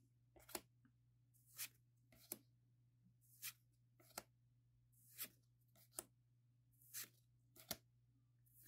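Faint, short swishes of Pokémon trading cards being slid one at a time from the front of a small stack to the back, about one a second, over a low steady hum.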